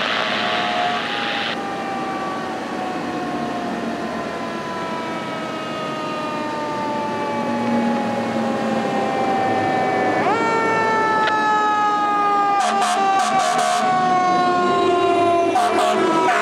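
Fire engine siren wailing. Its pitch slides slowly and steadily down, jumps sharply back up about ten seconds in, then slides down again. A few short, sharp sounds come near the end as the truck gets close.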